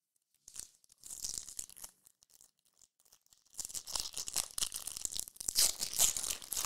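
Foil wrapper of a Topps trading-card pack crinkling and tearing as it is ripped open by hand. It comes in two spells, a short one and then a longer, louder one from about three and a half seconds in.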